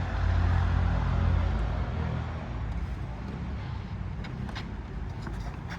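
Low engine rumble of a passing motor vehicle, fading away over the first two seconds, followed by a steady outdoor background with a few faint clicks.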